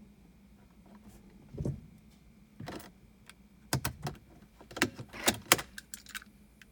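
A series of sharp clicks and thunks in a 2007 BMW 335i, a few spaced out at first, then a quick cluster in the second half; no engine cranking or running is heard, fitting a no-crank, no-start fault.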